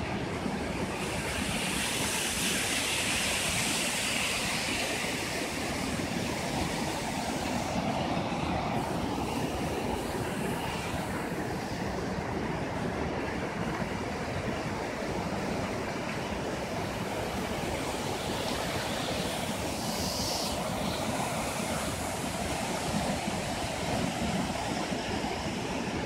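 Steady rushing of a waterfall, water cascading over rocks into the stream below.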